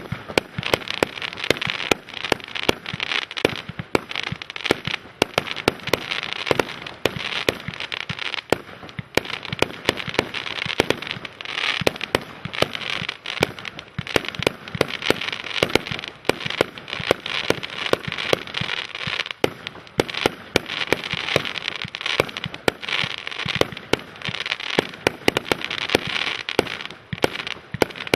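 A 100-shot, 2 cm-bore fireworks cake firing in rapid succession: sharp launch and burst reports come several times a second without a break, over a steady hiss of the burning stars.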